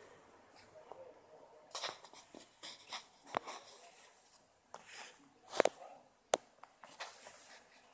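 Faint handling noise: scattered light clicks and short rustles, with a few sharper clicks in the second half.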